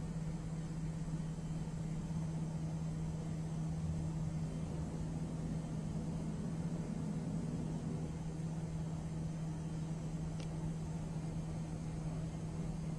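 A steady low hum over an even hiss, with a faint brief high sound about ten and a half seconds in.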